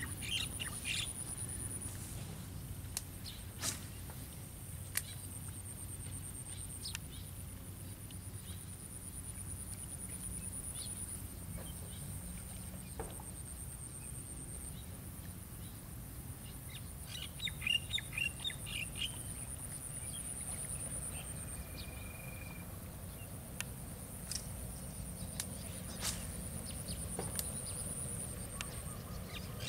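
Outdoor rural ambience: birds chirping now and then, with a high, rapidly pulsing insect trill that comes and goes in stretches of a few seconds over a low, steady rumble. A burst of chirps comes a little past halfway, followed shortly by a brief whistled note.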